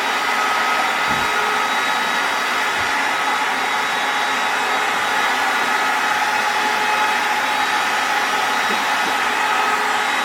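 Built-in electric air pump of a Bestway inflatable air mattress running steadily, blowing air into the mattress as it inflates. Two faint low thumps come in the first three seconds.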